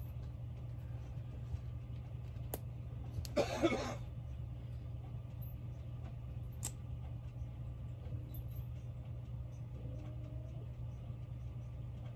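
Handling of a small liquid eyeshadow tube as it is opened: two sharp clicks and a brief rustling scrape about three seconds in, over a steady low hum.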